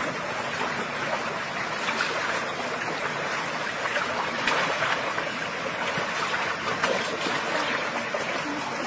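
Shallow stream running steadily over rocks, with a few light splashes and ticks from hands working in the water.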